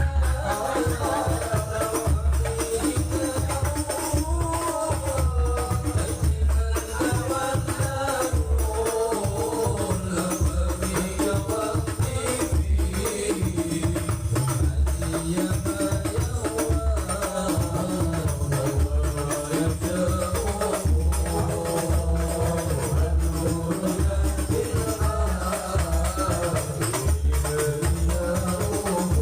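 Sholawat devotional music: frame drums keep a steady pounding beat with tambourine jingles over it, under a wavering melody line.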